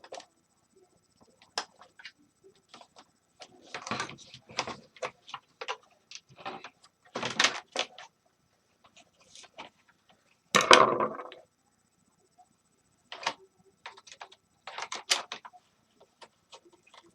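Intermittent clicks, scrapes and knocks of plastic parts and hand tools as a space heater's housing is worked apart at its bayonet attachments, with one louder clatter lasting under a second about ten seconds in.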